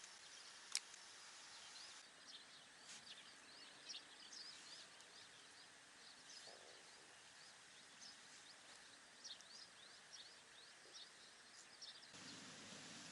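Faint outdoor ambience with many short, high chirps from small birds, plus a single sharp click about a second in.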